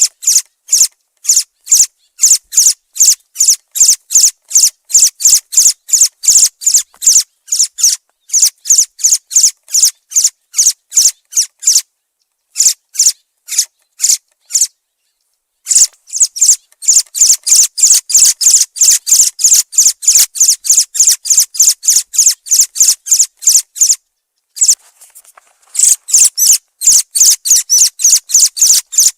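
Thrush (zorzal) calling: a fast, loud run of short high chirps, about three a second, broken by brief pauses about halfway through and again near the end.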